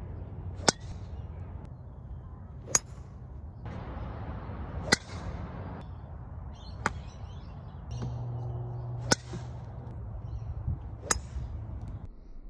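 Golf club striking the ball six times, about two seconds apart, each a single sharp crack, over a steady low outdoor background.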